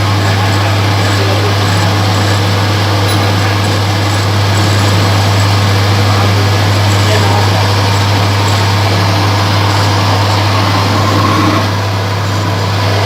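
Small electric lathe running steadily, its motor giving a strong low hum under a dense mechanical noise, easing slightly near the end.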